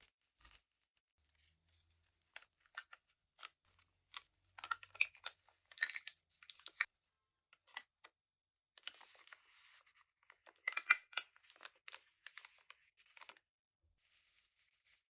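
Paper crinkling and rustling as it is handled, in irregular bursts of small crackles, busiest about a third of the way in and again after the middle.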